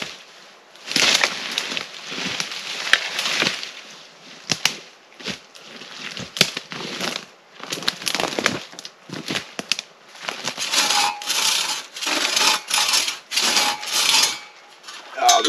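Dead brush and dry branches crunching and snapping as they are trampled and pulled through by hand. In the last few seconds the noise falls into a run of even strokes, about two a second.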